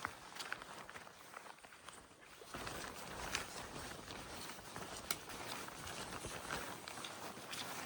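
Footsteps of hikers walking along a trail, with scattered crunches and clicks over a steady outdoor hiss; the sound grows fuller about two and a half seconds in.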